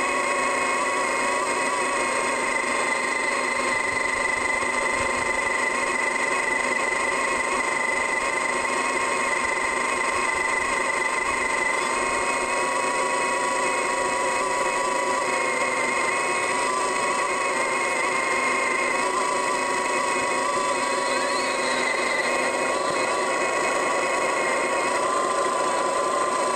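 Digging machine's engine and hydraulics running steadily under work, a constant droning whine whose pitch wavers slightly.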